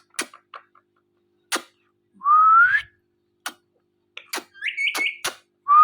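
Ringneck parakeet courtship sounds: a rising whistle about two seconds in and another near the end, a short chirpy call between them, over a scatter of sharp clicks.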